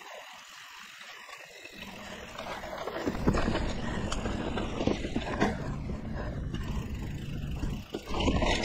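2017 Liv Pique 3 mountain bike ridden on dirt singletrack, heard from a chest-mounted camera: tyre and wind rush with rattling clicks from the bike. It is quieter for the first couple of seconds and gets louder from about three seconds in.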